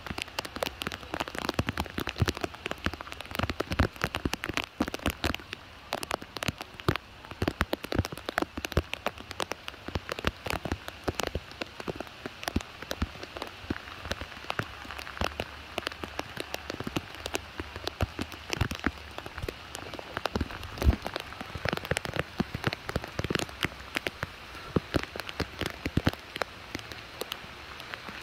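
Steady rain falling on puddled water and wet ground, with many close drops tapping irregularly over a constant hiss.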